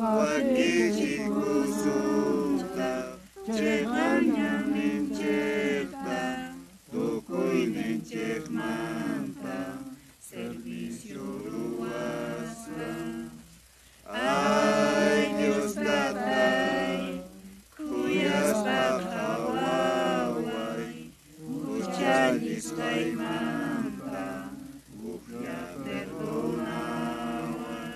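A congregation singing a hymn together in a run of sung phrases, each a few seconds long, with brief pauses between them.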